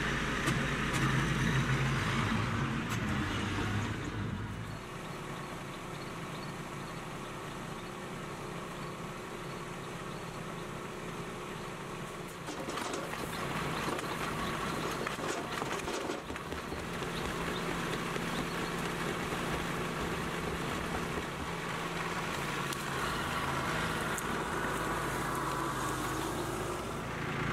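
Kubota B2261 compact tractor's three-cylinder diesel engine running steadily. The sound changes abruptly several times where the footage cuts between scenes.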